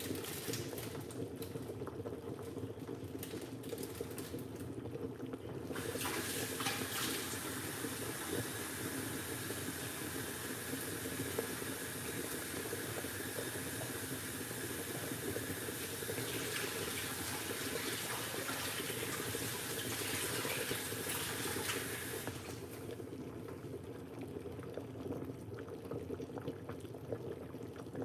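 Chicken soup simmering under the lid of an aluminium pot on the retained heat of a switched-off hot plate, a steady low bubbling. From about six seconds in until about twenty-two seconds a louder, even hiss rides over it.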